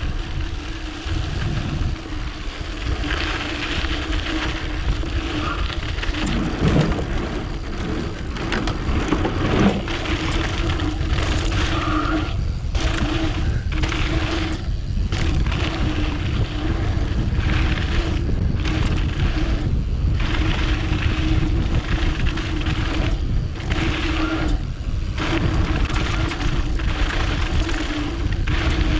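Mountain bike rolling fast down a dirt downhill trail: a steady rumble and hum of knobby tyres on hardpack. The noise drops out briefly again and again, every second or two, as the bike goes airborne over a run of jumps.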